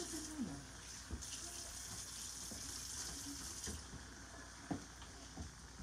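Kitchen tap running into a sink for a couple of seconds, starting about a second in, over the steady faint sizzle of shrimp frying in vegetable oil in a cast iron skillet. A few light clicks of a utensil against the pan.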